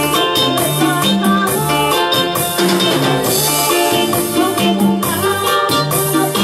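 Upbeat dance music with a steady beat, a repeating bass line and percussion.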